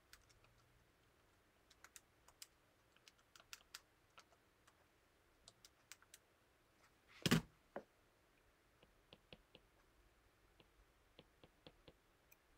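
Faint, irregular clicking of calculator keys being pressed to work out a sum, with one louder knock about seven seconds in.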